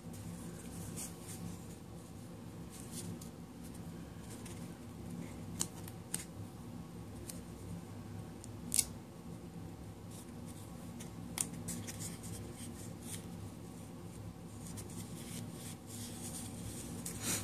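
Duct tape being pressed and smoothed by hand onto a cardboard tape-roll core: faint rubbing and crinkling, with a few sharp clicks and more crinkling near the end, over a low steady hum.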